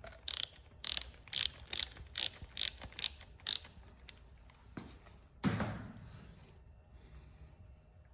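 Ratchet wrench with a socket on an extension clicking in short strokes, roughly two a second, as a bolt on a Harley-Davidson Sportster engine is loosened. About five and a half seconds in comes a single louder metal clunk.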